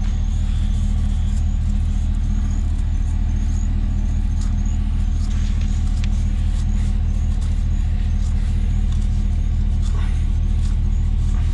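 GMC 2500HD pickup's engine idling steadily with a low, even hum. A faint high chirp repeats in the background.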